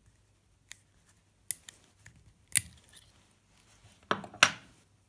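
Knife blade prying the nickel connecting tab off a NiCd cell, its spot welds popping loose: a few sharp metallic clicks about a second apart, then a louder pair of snaps near the end.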